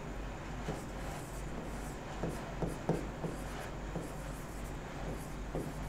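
Marker pen writing on a whiteboard: a series of short, faint strokes and taps as letters are written, over a low steady hum.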